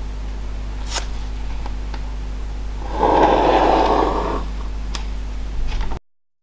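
Pencil drawn along a plastic course triangle on a paper nautical chart: one scratchy stroke of about a second and a half, starting about three seconds in, with a light click about a second before and after it. A steady low electrical hum lies underneath, and all sound cuts off abruptly near the end.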